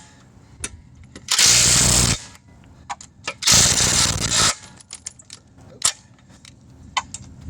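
Impact wrench running lug nuts onto a wheel in two bursts of about a second each, with small metal clicks of the socket and nuts between them.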